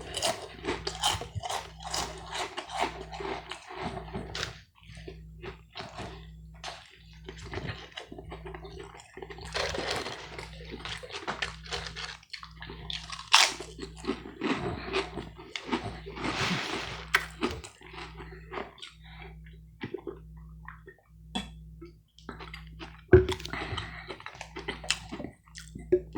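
Close-miked chewing of food, with many short mouth clicks, occasional crunches and a couple of sharper clicks. A faint low hum pulses about once a second underneath.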